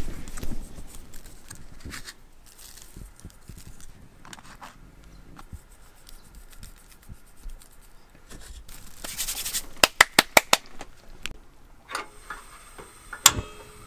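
Hands rubbing and scraping while seasoning raw diced duck meat, then a short hiss and a quick run of sharp clicks about nine to ten seconds in. Near the end a single loud click as the portable butane camping stove is lit under the frying pan.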